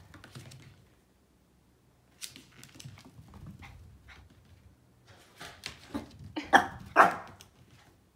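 Toy poodle barking: a few short barks about five and a half seconds in, then two loud barks about half a second apart. Quieter clicks and knocks come earlier.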